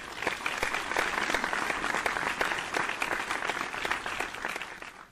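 Audience applause, many hands clapping together, thinning out near the end.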